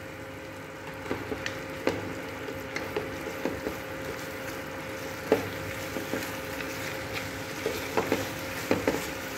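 Grated bottle-gourd halwa sizzling in ghee in a kadhai as a wooden spatula stirs it, with irregular clicks and scrapes of the spatula against the pan. The milk and sugar liquid has fully cooked off, so the mixture fries rather than bubbles.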